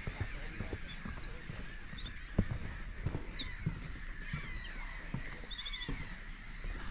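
Songbird singing a quick, varied song of high sweeping chirps, with a fast up-and-down trill in the middle, and a few soft knocks underneath.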